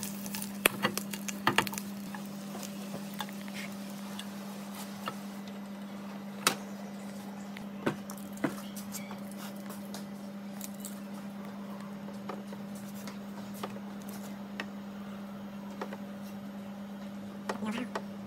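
Scattered light clicks and taps of chopsticks against a frying pan and plates, over a steady low hum.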